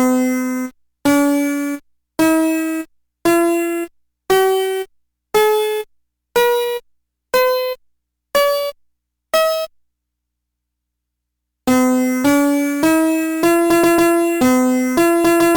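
Winfun ABC'N Tunes Center toy's electronic piano tones: ten single notes about a second apart, climbing up a scale. After a short pause, a quicker melody starts near the end.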